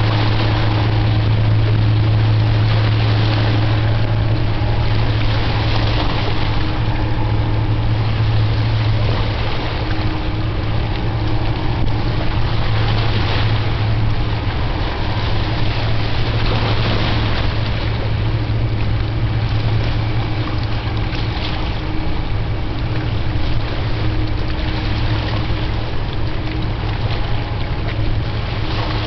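Steady low drone of a motorboat's engine running underway, with rushing water and wind noise that swells every few seconds.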